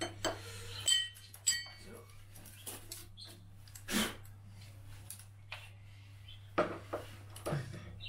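Hands handling tools and hard plastic and metal parts while the BMS is fitted onto its holder on the shelf: scattered clicks and light clinks, a couple ringing briefly, a sharper knock about halfway through and a cluster of clicks near the end, over a faint steady low hum.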